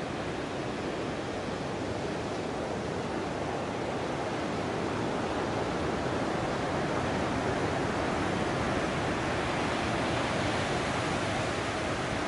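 Steady rush of ocean surf breaking, growing a little louder about halfway through.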